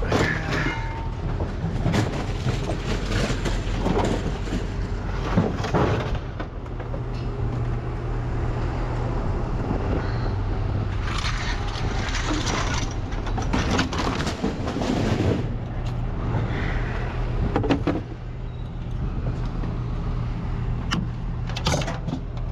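Scrap metal being unloaded by hand: repeated clanks, bangs and scrapes of metal items thrown onto a pile, over the steady low rumble of a running engine.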